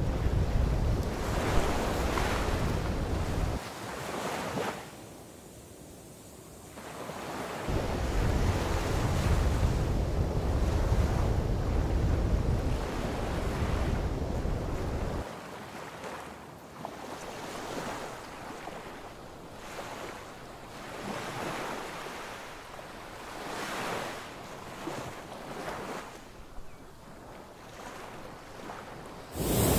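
Wind buffeting the microphone with a heavy low rumble in two long gusts during the first half, over the wash of sea surf breaking on the shore. In the second half the wind drops and the surf swells and fades every few seconds.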